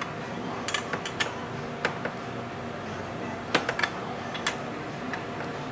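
Screwdriver and small metal carburetor parts clicking and tapping against a Yamaha R6 carburetor bank and its metal tray during reassembly: scattered sharp clicks, bunched about a second in and again around three and a half to four and a half seconds in, over a steady background hum.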